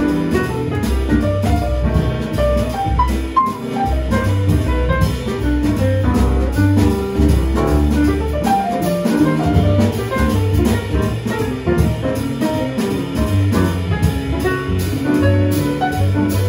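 Live small-group jazz: grand piano playing quick note lines, with a low bass line and a drum kit underneath.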